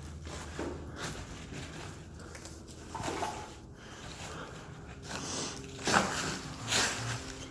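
Footsteps scuffing and crunching over a littered floor, irregular, with a few louder steps in the second half.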